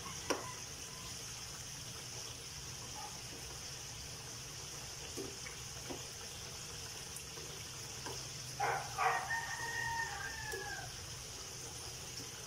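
Sweet potato chunks frying in oil in a pan with a steady sizzle, and a few light clicks of a spatula against the pan. A rooster crows once, loudest, about two-thirds of the way through.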